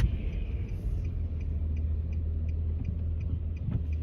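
Steady low rumble of a Nissan Maxima heard from inside the cabin while driving, with a faint, even ticking about three to four times a second.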